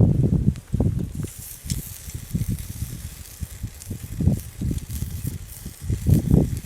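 Marinated beef kalbi sizzling on a compact B6-kun grill: a steady hiss that comes up about a second in. Repeated gusts of wind buffet the microphone with low rumbles.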